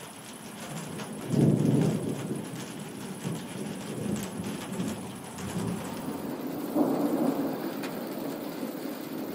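Thunder rumbling over steady rain, with a sudden loud peal about a second and a half in and a second, softer swell of thunder about seven seconds in.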